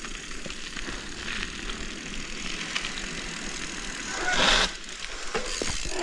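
Mountain bike rolling down a rough trail: steady tyre and wind noise, with a brief louder rush of noise about four and a half seconds in.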